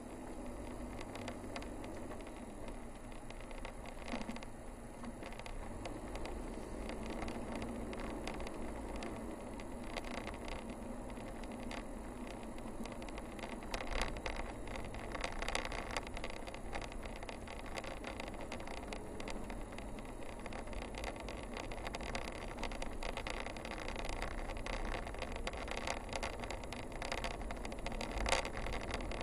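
Toyota car driving along a narrow paved road, heard from inside the cabin: a steady low engine and tyre rumble with occasional knocks and rattles, the loudest about halfway through and again near the end.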